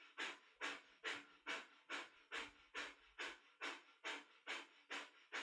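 Breath of fire: rapid, forceful exhales pumped out through the nose by the belly, in an even rhythm of about two and a half breaths a second.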